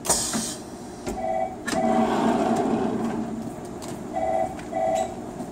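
Heat-sealing blister packing machine going through a sealing cycle: a short hiss at the start, a stretch of mechanical rumble about two seconds in, and four short beeps in two pairs.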